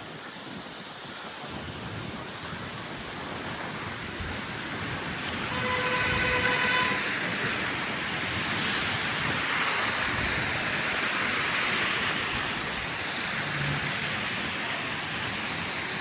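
City street traffic passing through slush: a steady hiss of tyres on the wet, slushy road that swells about five seconds in and stays loud. A steady pitched tone sounds for about a second and a half around six seconds in.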